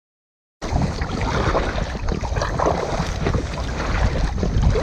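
Silent for about half a second, then wind rumbling on the microphone of a kayak-mounted camera, with water splashing and lapping around the kayak as it is paddled across choppy lake water.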